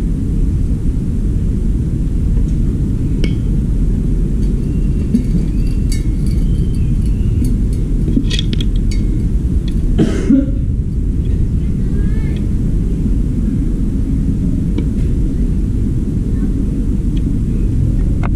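Steady low rumble throughout, with a few small clicks and clinks as parts are handled on a washing-machine motor; the sharpest click comes about ten seconds in.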